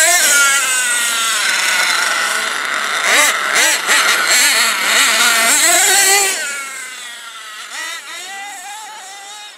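The Hot Bodies GTX2 truck's twin .26 nitro engines revving up and down in a high-pitched, buzzing run as the truck drives off. The sound fades steadily from about six seconds in as the truck moves away.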